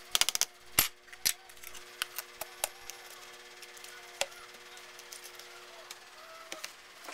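A spoon knocking several times in quick succession against a plastic bowl, followed by scattered clicks and taps as a plastic lid is handled and fitted onto the bowl, over a steady low hum.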